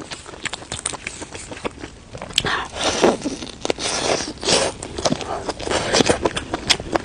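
A person biting and chewing shredded Sichuan peppercorn chicken: irregular wet mouth clicks and smacks, with louder chewing in the middle.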